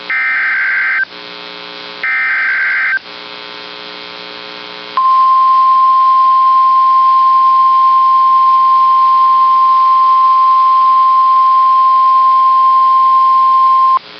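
NOAA Weather Radio alert: two raspy, screeching bursts of SAME digital header data, about a second each, then a steady 1050 Hz warning alarm tone that starts about five seconds in and holds for about nine seconds, announcing a tornado warning. A steady electrical hum runs underneath.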